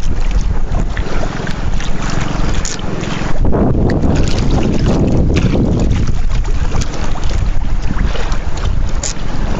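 Wind buffeting the microphone with a heavy, steady rumble that swells and eases every few seconds, over sea water splashing around a small outrigger boat.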